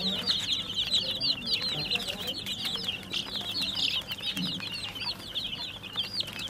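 A flock of young chicks peeping nonstop, many short, high cheeps overlapping one another.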